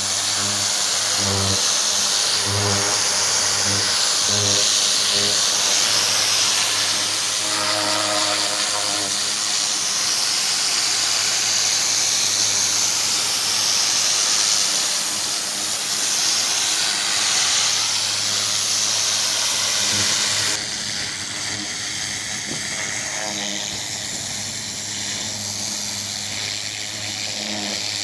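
Pressure washer spraying: a steady hiss of high-pressure water over the hum of the washer's engine. About two-thirds of the way through, the sound drops abruptly and quieter.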